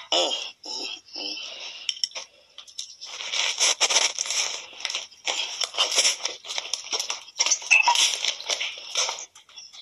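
Loud, uneven rustling and crinkling noise close to the microphone, with a short stretch of voice in the first second or so.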